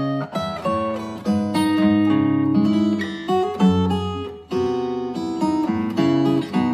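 Acoustic guitar music: plucked and strummed chords ringing on, with a new note or chord about every half second.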